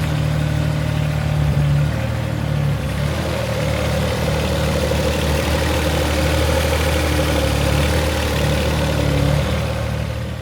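Engine idling steadily with a low, even hum, fading away near the end.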